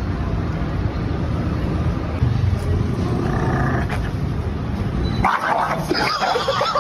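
Dog vocalising in a run of quick, wavering calls, starting abruptly about five seconds in over a steady low background noise.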